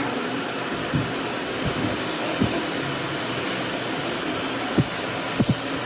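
Miele Classic C1 canister vacuum cleaner running steadily with a constant hiss, with a few short low knocks over it.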